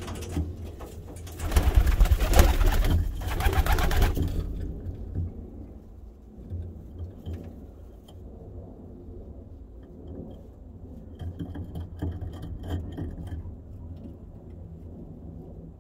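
Domestic pigeons cooing low in the loft, with a loud rustling flurry of noise lasting about three seconds near the start.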